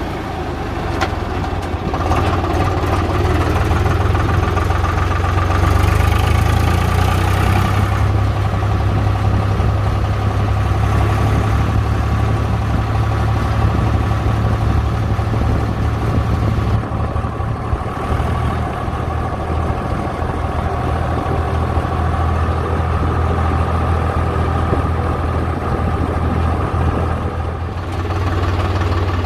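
Swaraj 735 FE tractor's three-cylinder diesel engine running while the tractor is driven, heard from the driver's seat. The engine note drops at the start as the gear lever is worked, then picks up about two seconds in and holds steady.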